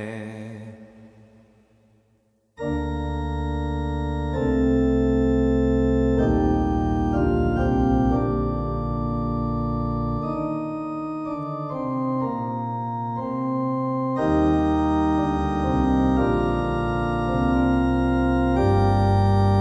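A sung note with vibrato dies away into reverberation. About two and a half seconds in, the motet starts abruptly as synthesized notation-software playback in an organ-like sound: steady held chords with several parts moving in slow polyphony.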